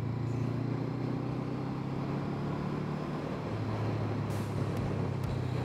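Honda CB500F's parallel-twin engine running at steady revs while under way, an even low hum. A rushing haze of wind and road noise runs under it, with a brief hiss about four seconds in.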